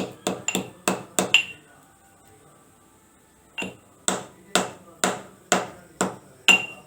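Pestle pounding dried ginger, black pepper and coriander seeds in a mortar. A run of quick, sharp strikes with a slight ring, a pause of about two seconds, then steady strikes about two a second.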